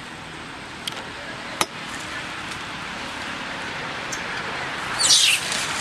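Steady background hiss with two sharp clicks in the first two seconds, then near the end a short, loud, high-pitched squeal falling in pitch from a macaque.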